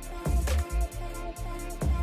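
Background music with a steady drum beat and heavy bass.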